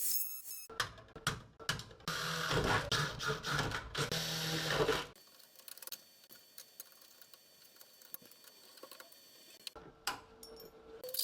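A handheld power tool runs in a burst of about four seconds with a low hum, goes quiet, then runs again briefly near the end.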